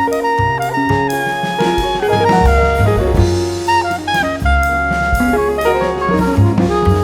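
Jazz background music: a saxophone or brass melody over a drum kit and bass.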